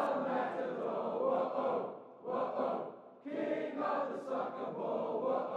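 A crowd of fans singing a chant together, heard from a distance, in phrases a second or two long with short breaks between them.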